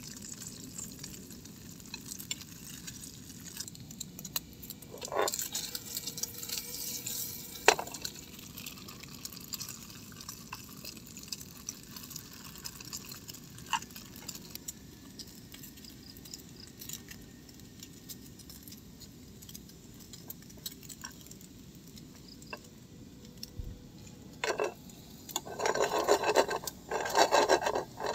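Cut sausages cooking in a nonstick frying pan on a portable gas camping stove, with metal tongs clicking and scraping against the pan as the pieces are turned. Near the end come louder bouts of scraping and rattling as the pan is worked by its handle.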